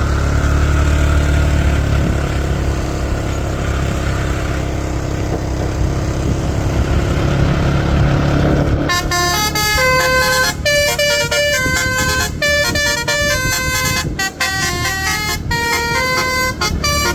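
Steady low rumble of vehicle engines, then about nine seconds in a bus's Basuri V3 telolet horn starts playing a quick melody of stepping notes with short breaks between phrases.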